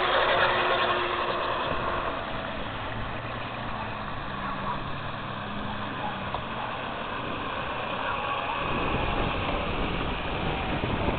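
Small brushless outrunner motor of a nano RC boat whining as the boat runs across the water on its surface-drive prop, with its pitch shifting as the throttle changes. Wind buffets the microphone, heavier from about three-quarters of the way in.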